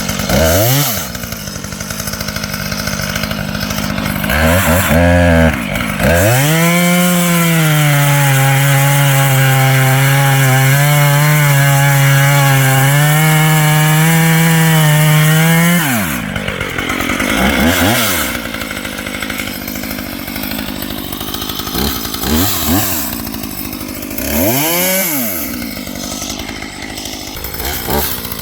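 Husqvarna T540XP top-handle chainsaw's two-stroke engine revving, with a new chain being tried out. It is blipped twice, then held at full throttle for about ten seconds while cutting wood, its pitch sagging slightly under load. It then drops back toward idle, with three more short revs near the end.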